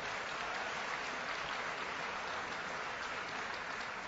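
Audience applauding steadily after a joke in a speech.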